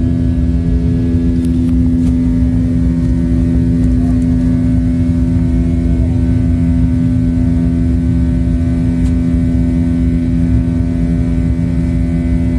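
Steady drone of a passenger jet's engines heard inside the cabin shortly after takeoff, a constant low hum tone over a rumble.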